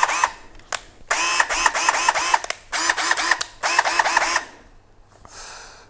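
Einhell 18 V cordless drill running on its newly fitted replacement motor, worked in quick short trigger pulls, the pitch rising and falling with each run. The bursts stop about four and a half seconds in. The motor runs, so the repair works.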